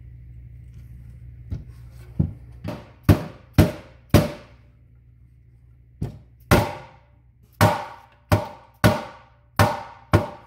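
A mallet tapping new spark plug tube seals into their bores in a Honda K20's aluminium valve cover: about a dozen sharp blows in two runs with a pause in the middle. Each blow rings briefly through the cover, and the seals are a tight fit that is being driven home flush.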